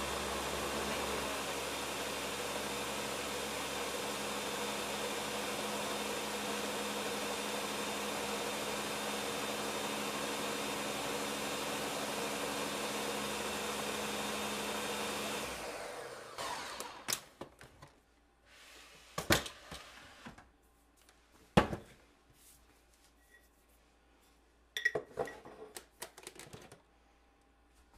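Ninja countertop blender running steadily at speed, blending a smoothie, then switched off about halfway through. After it stops come several sharp plastic clacks and knocks as the pitcher is lifted off the motor base and its lid is handled.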